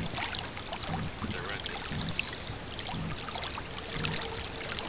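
Water gurgling and splashing along the hull of an FJ 13 sailing dinghy under way under sail: a steady wash with small irregular splashes.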